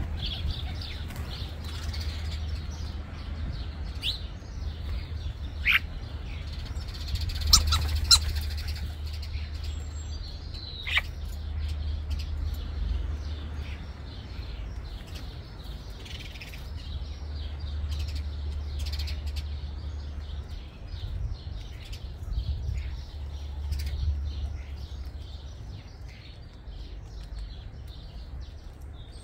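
Starlings chattering and calling, with short rapid notes throughout, a couple of sharp clicks about seven to eight seconds in and a short falling whistle near eleven seconds. A steady low rumble runs underneath.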